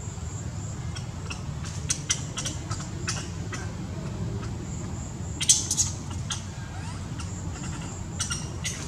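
Long-tailed macaque chewing crunchy food: irregular sharp crunching clicks, with a louder cluster about five and a half seconds in, over a steady low rumble.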